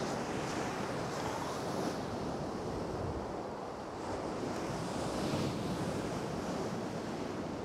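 Surf breaking and washing up a shingle beach, as a steady rushing wash that swells a little at times.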